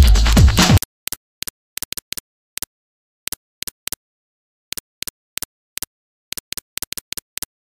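Electronic music cutting off suddenly just under a second in, then about twenty sharp computer mouse clicks, irregularly spaced and some in quick pairs, with dead silence between them.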